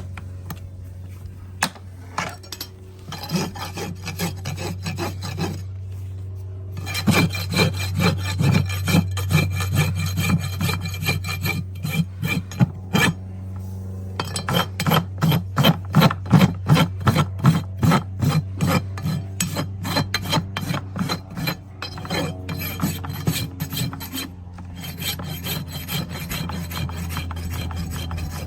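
Farrier's rasp filing a horse's hoof in repeated strokes, about two a second, heaviest through the middle, over a steady low hum.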